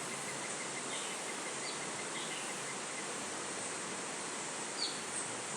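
Steady rush of running water, with a few brief, faint bird chirps over it; the clearest chirp about five seconds in.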